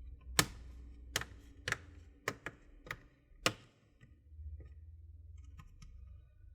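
Plastic retaining clips of a laptop's bottom cover snapping loose one after another as a guitar pick is worked along the seam, about seven sharp clicks, then fainter scraping of the pick against the plastic.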